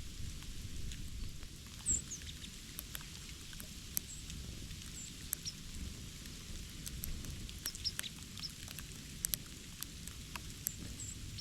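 Small birds giving short, high chirps now and then, among many scattered sharp ticks and taps.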